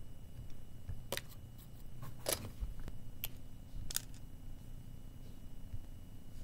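Four light, sharp clicks and knocks, spread over about three seconds, as the vintage Mr. Potato Head toy figures topple into a heap and are moved.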